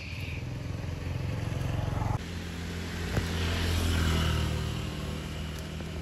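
A motor vehicle's engine hum, swelling to its loudest about four seconds in and then easing off. It breaks off abruptly about two seconds in at an edit. A single sharp click comes about three seconds in.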